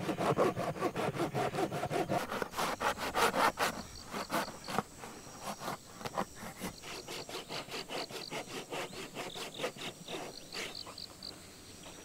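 A small handsaw cutting through the hard shell of a dried bottle gourd, quick back-and-forth strokes, louder for the first few seconds and softer after about four seconds in.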